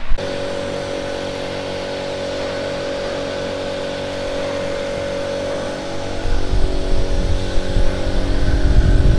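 DPL-200 pulsed 200 W laser cleaning machine switched on and running: a steady hum with a clear pitch. About six seconds in, a louder, uneven low noise joins as the handheld laser head is brought down over the painted car panel.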